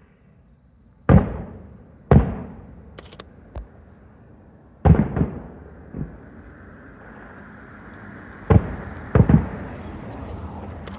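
Aerial firework shells bursting in a series of loud booms, some in quick succession, each fading away in an echo.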